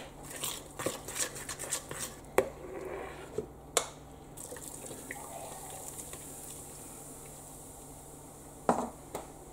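A fork beating wet batter in a bowl, clicking and scraping against the bowl's sides for about four seconds, then stopping. A single knock comes near the end.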